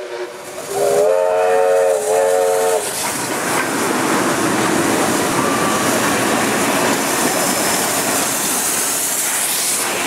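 Steam locomotive whistle blowing for about two seconds, then a steam train passing close by with a steady rush of exhaust, steam and wheels on the rails.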